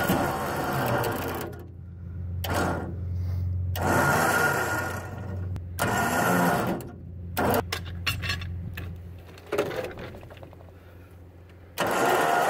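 Electric winch running in stop-start pulls, dragging a log across a wooden trailer deck on its steel cable. The winch is powered through jumper cables from a running truck.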